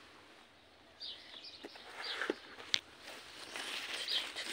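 Light rustling and a few sharp clicks of a hand moving through strawberry plant leaves, starting about a second in, with a few faint bird chirps.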